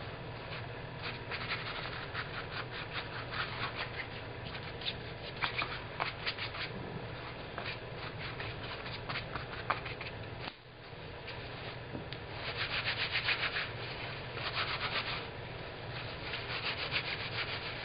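Paintbrush scrubbing paint into a wet cloth in quick, scratchy strokes, then the wet painted cloth being scrunched and squeezed in the hands in several short bursts.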